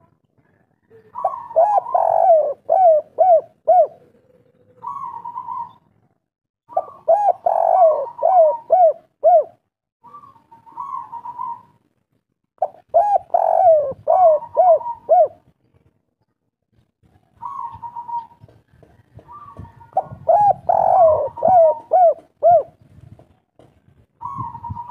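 Spotted dove cooing in the song type keepers call "kuk 3": four phrases, each a quick run of about five arched coos, with short single coos in the gaps between them.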